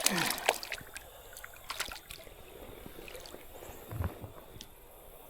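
Creek water splashing sharply at the start as a just-landed fish thrashes, then scattered drips and small clicks. A dull thump comes about four seconds in.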